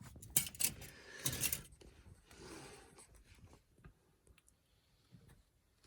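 Clatter and sharp clicks of small hard objects being handled, loudest in the first second and a half, followed by a short rustle and a few scattered clicks.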